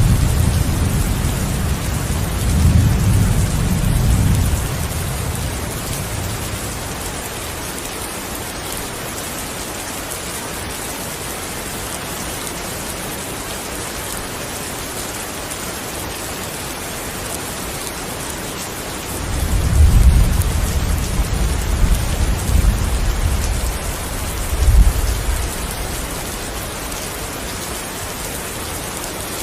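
Steady heavy rain with rolls of thunder: a rumble dying away in the first few seconds, and another rolling in about 19 seconds in, with a sharper clap near its end.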